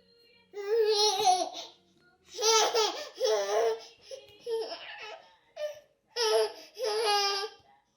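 A baby squealing happily in a run of about six short, wavering shrieks with brief pauses between them.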